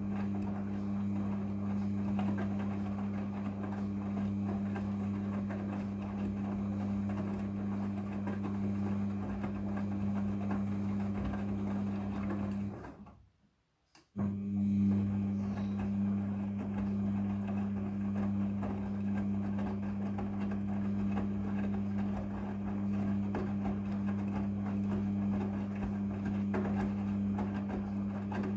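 Midea front-loading washing machine running with a steady, low electric hum. The hum fades out about halfway through, stops for about a second, then starts again suddenly.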